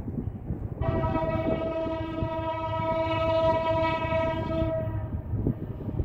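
Locomotive's Nathan K5LLA five-chime air horn blowing one long blast of about four seconds over the low rumble of the approaching train; the horn is fouled, giving an ugly-sounding chord.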